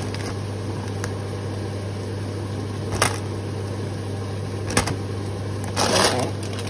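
Plastic packaging of baby plum tomatoes crinkling as it is handled and emptied over a bowl, with a few sharp taps as tomatoes land and a longer crinkle near the end. A steady low hum sits underneath.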